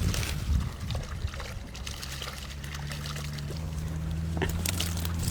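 Water trickling and pouring off a keepnet of crucian carp as it is lifted from the reservoir, with many small splashes and drips.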